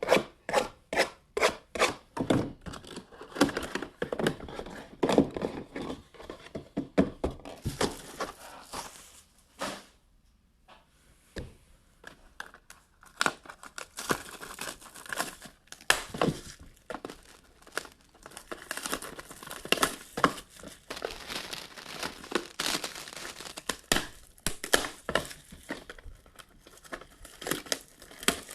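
Plastic shrink wrap being torn and crumpled off small trading-card boxes: a dense run of crackles and rips, with a short pause about ten seconds in.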